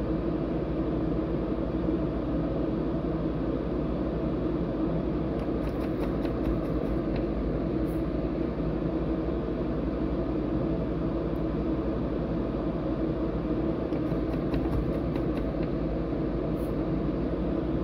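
Steady mechanical hum like a running fan, with two short clusters of faint clicks, about six seconds in and again near fifteen seconds.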